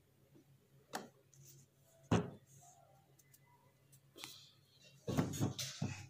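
A woman sniffing at a green chili held under her nose to bring on a sneeze: short sharp sniffs about a second in, again around two seconds and four seconds, then a quick run of several nasal breaths near the end.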